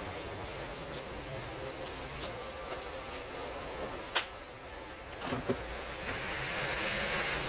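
Gas torch hissing steadily as its flame heats a magnetic coil housing, with a sharp click about four seconds in and a couple of knocks a second later; the hiss grows louder near the end.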